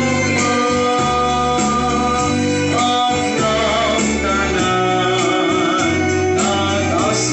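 Communion hymn: voices singing over a steady instrumental accompaniment with a held bass line.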